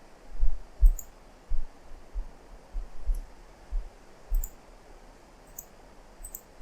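Computer mouse clicking a few times, sharp short ticks, over irregular dull low thumps every half second or so.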